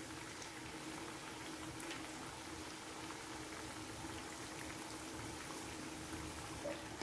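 Hot oil bubbling and sizzling steadily around a freshly added batch of Mysore bonda batter fritters being deep-fried.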